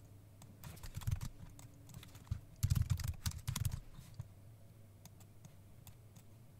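Computer keyboard being typed on: a quick, uneven run of key clicks from about half a second in, busiest around three seconds, dying away after about four seconds.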